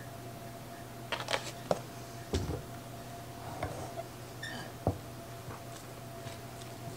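A fork clinking and scraping against a glass mixing bowl several times while stirring cream into biscuit dough, with one duller thump about two and a half seconds in, over a steady low hum.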